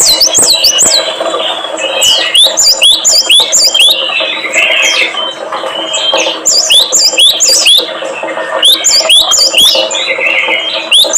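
Small songbird singing loud, sharp whistled notes in quick phrases of four or five, about four notes a second, with short pauses between phrases. A steady low hum runs beneath.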